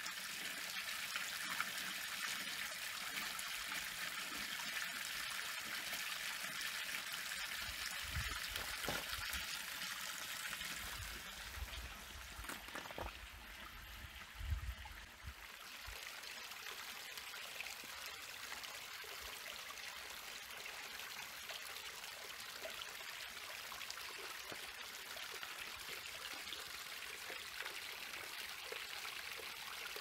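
A small canyon waterfall running steadily as a thin stream over bedrock and splashing into rocky pools, a continuous hiss of water. A few low thumps come about halfway through, and the water is a little quieter after that.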